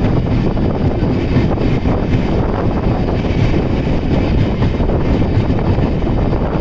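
A moving passenger train's steady rumble, with wind buffeting the microphone.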